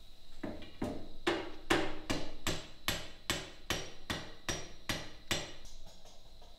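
Hammer blows on white-hot metal on an anvil, a steady run of about a dozen strikes at roughly two and a half a second, stopping about five seconds in: forge welding, the blows joining the pieces at welding heat.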